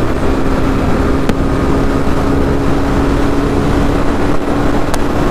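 Honda CB300R's single-cylinder engine running at high, steady revs at speed, its note held level, under a heavy rumble of wind buffeting the microphone.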